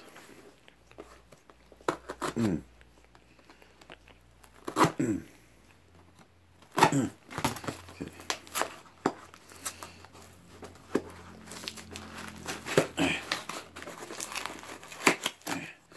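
A small cardboard shipping box being torn open by hand: intermittent short rips of cardboard and tape, with crinkling.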